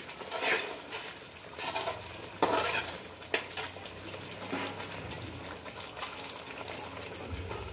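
Steel slotted ladle stirring thick masala gravy in an aluminium kadai, several scraping strokes against the pan in the first few seconds with one sharp click. After that the masala paste sizzles quietly as it cooks down.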